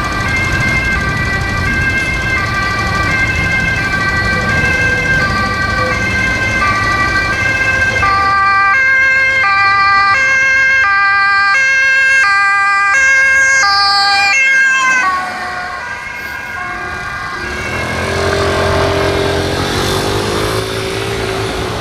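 Ambulance two-tone siren alternating between a high and a low note, growing louder as the ambulance approaches, over the low rumble of truck and traffic engines. The siren drops away about fifteen seconds in, and a lower, wavering tone follows near the end.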